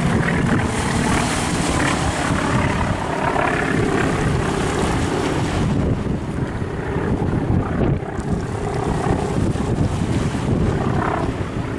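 Piston aircraft engine droning as a warbird flies past, buffeted by heavy wind noise on the microphone; the sound turns duller about halfway through.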